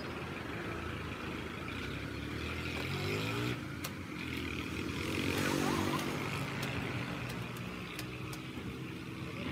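Road traffic passing, with motor vehicle engines rising in pitch about three seconds in and again, loudest, around five to six seconds in.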